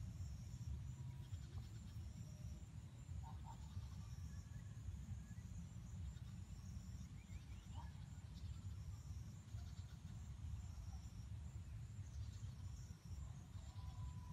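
Faint field ambience: a steady low rumble of wind on the microphone, short high chirps repeating throughout, and a few soft chicken calls, with a rooster's crow beginning near the end.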